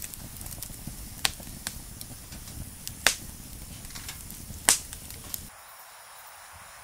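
Campfire crackling: a handful of sharp pops from burning firewood, the loudest about three seconds in and just before five seconds, over a low rumble that stops about five and a half seconds in.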